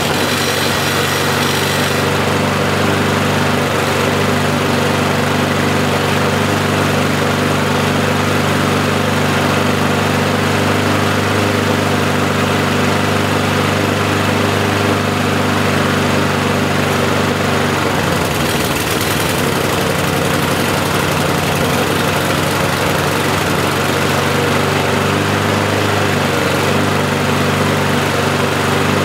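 Briggs & Stratton single-cylinder lawnmower engine running steadily on its own, its note wavering briefly about two-thirds of the way through. It is running with one governor spring missing and the throttle left loose, on a freshly replaced carburettor diaphragm and gasket.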